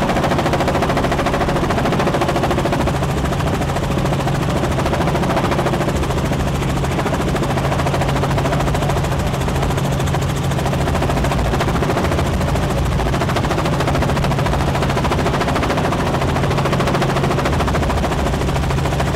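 Helicopter in flight: steady engine and rotor noise with a rapid, even chop from the blades.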